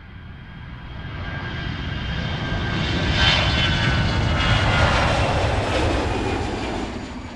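Jet airliner engines running, a loud rumble with a high whine on top. It fades in over the first few seconds, holds steady, then cuts off right at the end.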